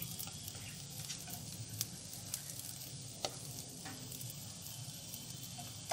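A few separate light clicks and scrapes of a utensil and plate against a nonstick kadai as cooked upma is served out, over a steady low background noise.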